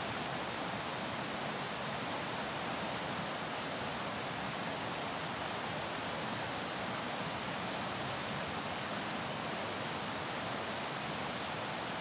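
River rapids rushing steadily over rocks: an even hiss of white water.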